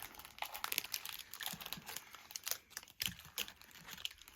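Small plastic toy pieces and their wrappers being handled: scattered light clicks and crinkles at an irregular pace.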